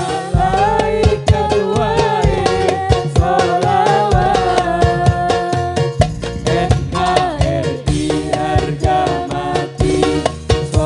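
Hadroh ensemble playing a sholawat: hand-beaten frame drums keep a fast, dense rhythm under a sung, ornamented melody.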